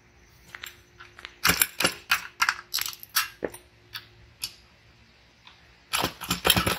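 A socket wrench turning out the 3/8-inch bolts of a lawn mower engine's oil pan, making sharp metal clicks in quick runs of about four to five a second. There is a run in the first half and a denser burst near the end.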